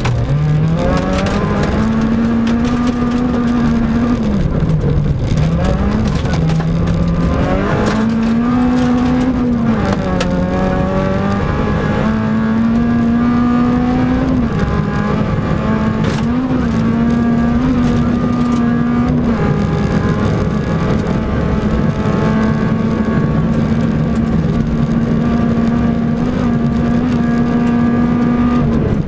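Peugeot 106 rally car's engine heard from inside the cabin, revving hard with several quick rises and drops in pitch over the first ten seconds as it shifts gear. It then holds at high revs with brief dips, with gravel rattling against the car.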